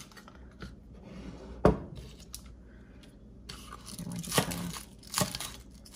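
Chef's knife cutting through scallions on a wooden cutting board: a few sharp knocks of the blade on the board, the loudest under two seconds in, with faint crunching and scraping between.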